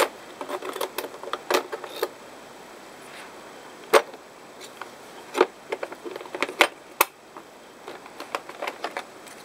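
Hard plastic and metal tools being lifted out of and set back into the moulded slots of a plastic tool case: an irregular string of clicks and clacks, the loudest at the very start and about four seconds in.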